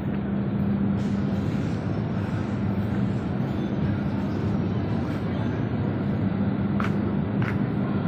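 Steady low drone of a ferry's engines and machinery heard on its enclosed vehicle deck, an even hum with noise over it. Two short sharp clicks come near the end.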